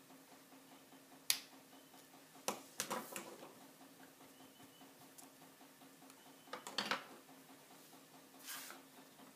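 Small clicks and knocks of craft tools being set down on a cutting mat, a pen among them, with a short scuff near the end as the card is slid across the mat. A low steady hum runs underneath.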